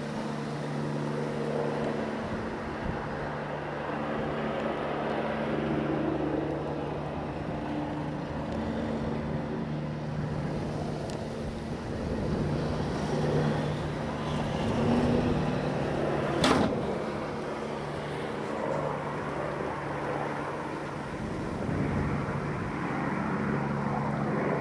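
Helicopter flying overhead: a steady rotor and engine hum that swells and fades slowly, with a single sharp click about two-thirds of the way through.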